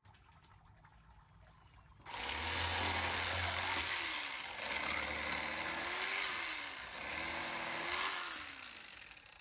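Corded electric fillet knife switched on about two seconds in, buzzing as its blades saw through a crappie; the motor's pitch dips and recovers several times as it meets the bones, and it winds down near the end.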